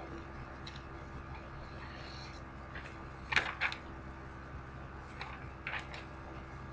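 Steady background hum with a handful of short, sharp clicks. The loudest pair comes about midway and a few fainter clicks follow near the end.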